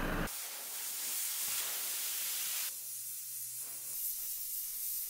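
Oxy-acetylene torch flame hissing steadily. About two and a half seconds in the hiss shifts to a thinner, higher sound as the flame plays on a steel plate.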